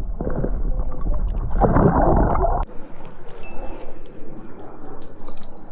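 Water sloshing and gurgling close to the microphone, loudest about two seconds in, as a smallmouth bass is let go back into the river. It breaks off abruptly, and a quieter hiss of flowing river water follows.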